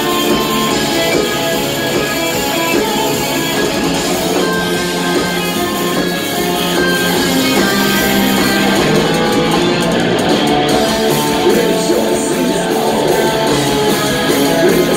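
A heavy metal band playing live and loud, electric guitars strumming over the full band.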